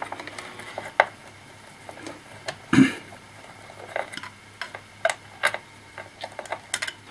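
Small irregular clicks and taps of a screwdriver and tiny screws being worked out of a laptop's plastic case, with one louder knock about three seconds in.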